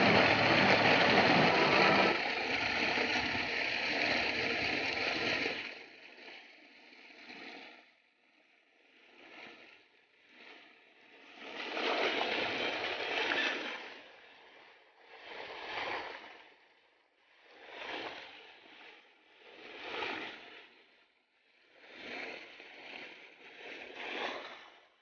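Water from a 10 hp solar-powered tubewell gushing out of the discharge pipe into a concrete tank: a loud, steady rush for the first five or six seconds, then fainter, rising and falling every couple of seconds.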